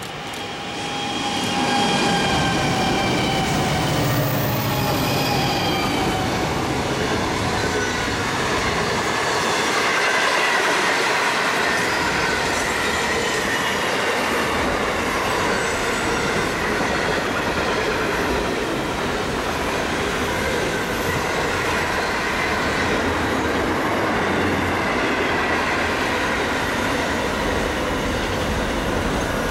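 Diesel-hauled container freight train passing close by. It rises to a loud, steady rumble in the first two seconds, with falling tones as the locomotives go by. Then a long string of container wagons rolls past with wheel squeal and clickety-clack over the rail joints.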